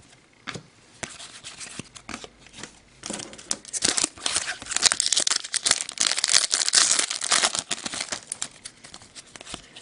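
Foil wrapper of an Upper Deck hockey card pack being torn open and crinkled. A few light crackles come first, then dense crinkling from about three to eight seconds in, which thins out near the end as the cards are slid out.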